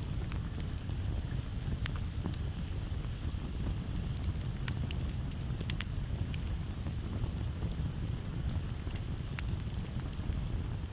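Campfire crackling with frequent sharp, irregular pops over a steady low rumble of breeze, with a steady high cricket trill underneath.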